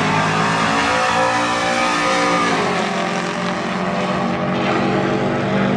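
Engines of a pickup truck and a car on a drag strip, running and revving at the start line, several engines at once with pitch rising and falling around the middle.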